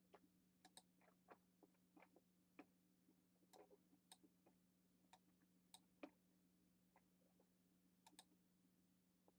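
Near silence: faint, irregular clicks of a computer keyboard being typed on, over a low steady hum.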